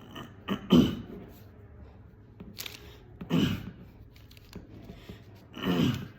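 A person's throat clearing in short harsh bursts, three main ones with small grunts between. The loudest comes just under a second in and the last is longer. It is a vocal throat-clearing tic.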